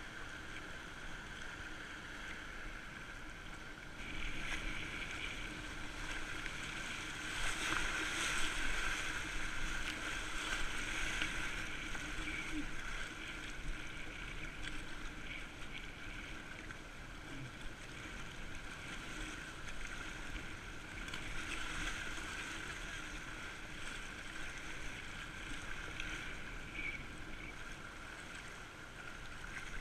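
Swift high-water river current rushing and splashing around a whitewater kayak as it is paddled downstream, a steady rush that grows louder for a few seconds about a quarter of the way in.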